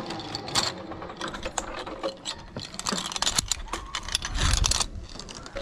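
Rapid, irregular metallic clicking and rattling of tree-course climbing gear: carabiners and a pulley on the steel safety cables. A brief low rumble comes near the end.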